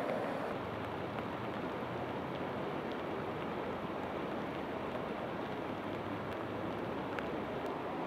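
Steady rushing noise of a muddy river in flood flowing fast past a bridge and piled debris.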